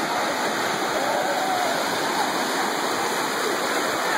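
Ocean surf breaking and washing up the beach in a steady rush, with faint voices of people in the water.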